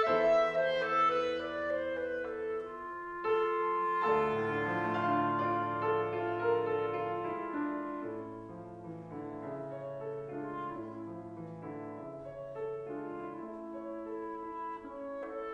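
Clarinet and a Stuart & Sons grand piano playing a slow classical duet: long held clarinet notes over piano chords, growing gradually softer toward the end.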